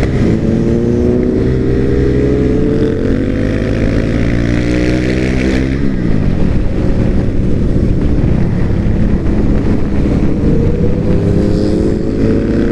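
Sport motorcycle engines at speed in a group ride, the engine note climbing as they rev, dropping about six seconds in, then climbing again near the end.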